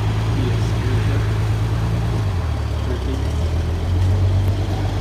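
A truck engine running steadily. Its pitch drops slightly about two and a half seconds in and comes back up near the end.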